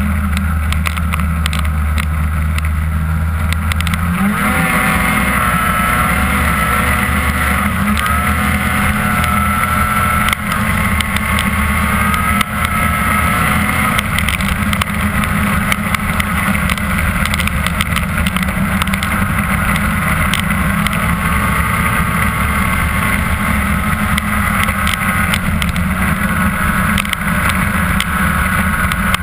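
Ski-Doo MX Z 500SS snowmobile's two-stroke twin engine running hard along a trail. It revs up about four seconds in, then holds high revs with small rises and falls in pitch as the throttle changes.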